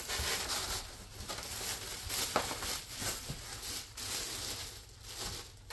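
Packing being handled as a new glass stovetop unit is lifted out of its cardboard box: irregular rustling and crinkling of plastic wrap and cardboard, with a few light knocks.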